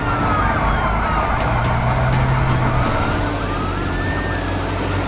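Emergency sirens wailing, their pitch sliding up and down in overlapping sweeps, over the steady low rumble of vehicle engines as the rescue vehicles speed off.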